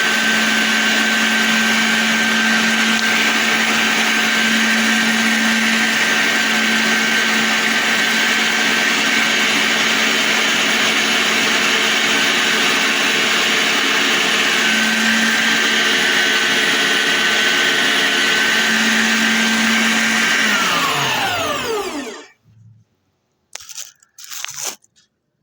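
HOUSNAT electric meat grinder motor running steadily with a hum and a high whine, then switched off about 20 seconds in and winding down with a falling pitch. A few short knocks follow near the end.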